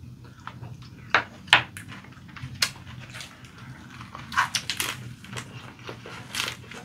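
Close-miked eating sounds of a leaf-wrapped rice bite (ssam): sharp crackles and clicks about a second in as the leaf and chopsticks are handled, then a run of wet chewing and lip smacks once the wrap goes into the mouth, about four seconds in.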